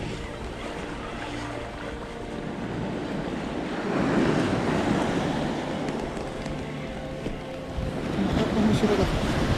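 Small surf waves washing up a sandy beach, swelling about four seconds in and again near the end. Under it, a spinning reel being wound in gives a faint steady whir in the first few seconds.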